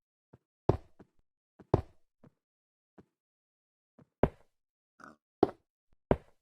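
A series of sharp knocks at uneven intervals: five loud ones with fainter taps between them, and a brief squeak about five seconds in.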